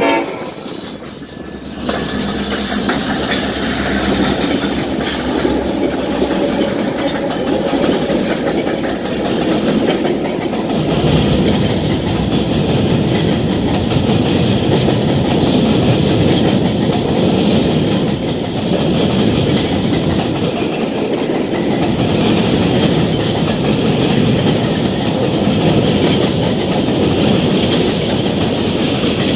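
Union Pacific diesel locomotives, an SD70AH and a C45ACCTE, rumbling past at the head of a grain train. From about ten seconds in, a long string of covered hopper cars follows, rolling by with a steady clatter of wheels on the rails.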